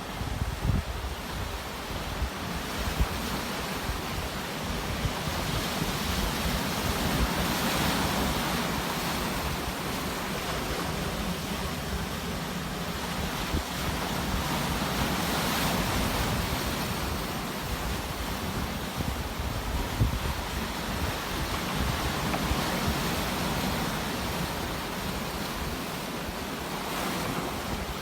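Sea waves: a continuous wash of surf that swells and ebbs, rising to a louder surge roughly every seven seconds.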